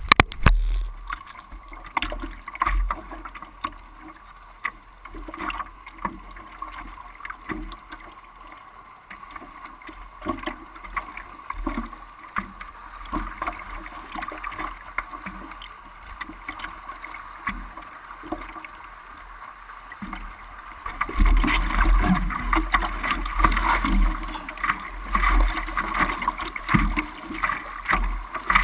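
Ocean water sounds, surf and splashing, with irregular short knocks and splashes. About two-thirds of the way through it grows louder, with a gusty low rumble.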